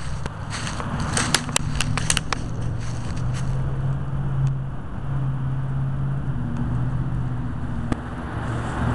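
Low, steady engine hum that holds a couple of level tones, with a quick cluster of sharp clicks and crackles between one and two and a half seconds in and a single click near the end.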